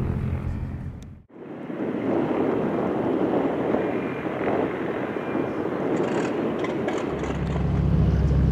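Light single-engine propeller aircraft's engine drone, which cuts off abruptly about a second in. It is followed by outdoor noise with wind on the microphone, and a low rumble that grows louder near the end.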